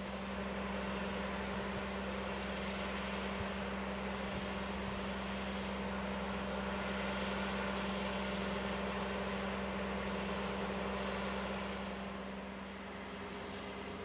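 Diesel engine of a distant tracked excavator running with a steady hum, growing slightly louder in the middle and easing off near the end.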